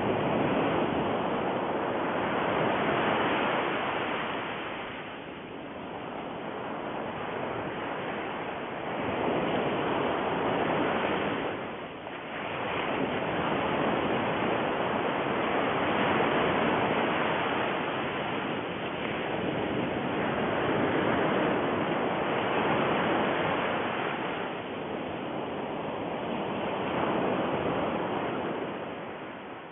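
A steady rushing noise that swells and eases every few seconds, in the manner of surf.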